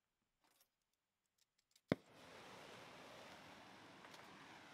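A gas welding torch being lit: a sharp pop about two seconds in as it ignites, then the steady hiss of the open flame.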